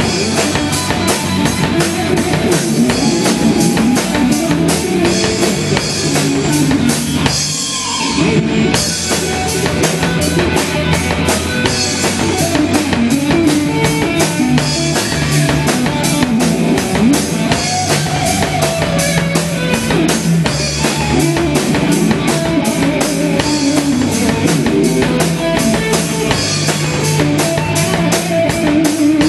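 Live rock band playing an instrumental passage: distorted electric guitar and bass guitar over a driving drum kit. About eight seconds in the drums drop out for a brief break before the full band comes back in.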